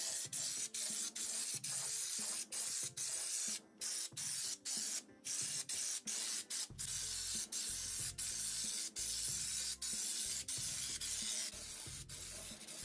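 Compressed-air undercoating gun spraying anticorrosion mastic from a screw-on cartridge, a steady air hiss cut by many short gaps, two or three a second, as the trigger is let off and pulled again.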